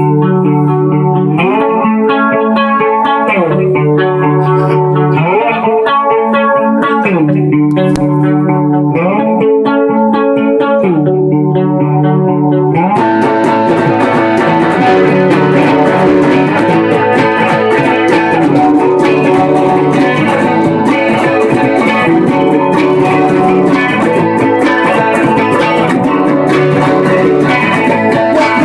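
Guitar playing a repeating riff in phrases of about two seconds. About halfway through the sound turns fuller and harsher, with more hiss and clatter on top.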